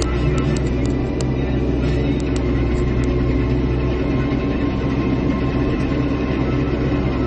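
Caterpillar excavator's diesel engine running steadily with a low, even drone, with a few sharp ticks in the first three seconds.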